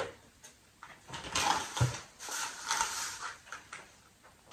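Plastic shopping bag rustling and crinkling as groceries are pulled out of it, with one soft thud a little under two seconds in.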